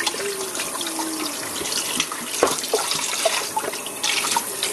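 Water running and splashing in a kitchen sink as a raw turkey is rubbed and washed by hand, with a steady rush of water and scattered small splashes and plops.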